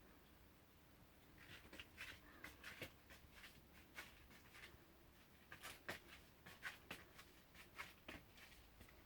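Faint, irregular scratching and rustling from small kittens shifting about on top of a refrigerator. It starts about a second and a half in.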